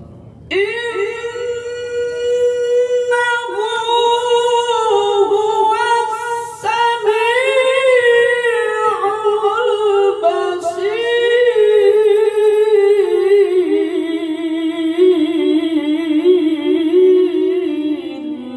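A qori's solo voice reciting the Quran in melodic tilawah style, holding long, richly ornamented notes with a few short breaks for breath. The melody steps gradually lower over the last several seconds as the closing phrase of the recitation settles and ends.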